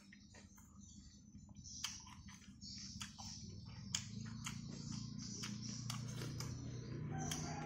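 Close-up eating sounds of a meal taken by hand: chewing, lip smacks and clicks as fingers pick through rice and beef on a banana-leaf plate. A low steady hum grows louder from about halfway through.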